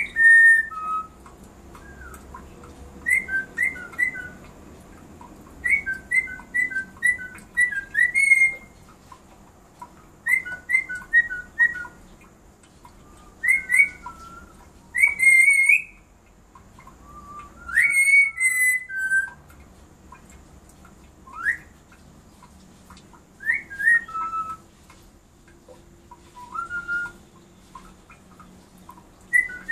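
Black-capped lory whistling: short, clear, high whistled notes, some sliding up or down, mostly in quick runs of three to six with pauses of a second or two between runs.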